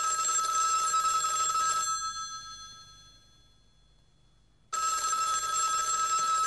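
Telephone bell ringing in two long rings of about two seconds each. The bell rings out and fades away after the first.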